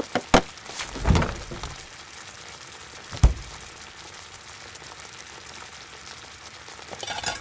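Steady hiss with a few sharp knocks near the start, a heavy low thud about a second in and another sharp thud about three seconds in, and a short rushing swell near the end.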